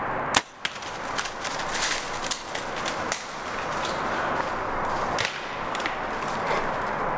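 A compound bow shot: one sharp, loud snap of the released string about a third of a second in, followed by scattered lighter clicks and rustling.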